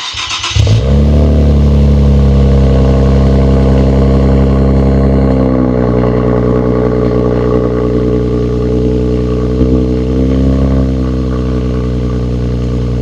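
Car engine cold start: the starter cranks briefly and the engine catches within the first second, then runs at a loud, steady fast idle that eases down slightly about halfway through.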